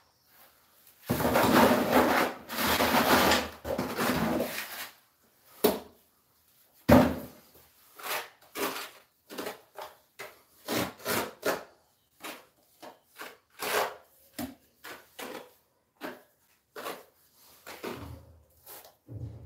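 Steel trowel scraping and spreading mortar over a concrete floor: a long continuous scrape about a second in, then a string of short separate scrapes and taps.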